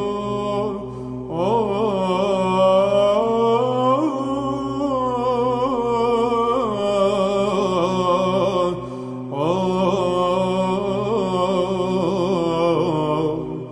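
Byzantine chant: a male cantor sings a melismatic Mode IV legetos melody over a steady low ison drone. The melody breaks off for a breath about a second in and again at about nine seconds, while the drone holds.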